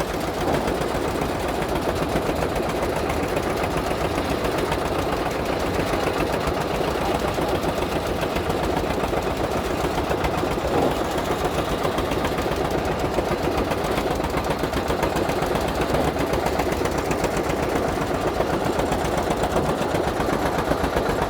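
Carrot washing machine running steadily, its drive and drum making a continuous fast mechanical clatter.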